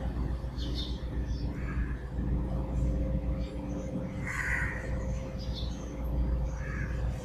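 Steady low background hum with a faint steady whine over it, and a few faint short sounds scattered across it.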